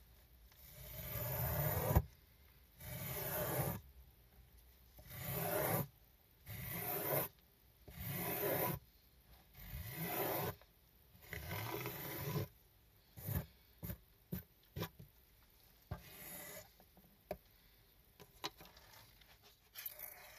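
Miniature squeegee scraping wet foam and water off a small rug, with repeated rasping strokes about a second long. Over the last several seconds the strokes turn shorter and quicker.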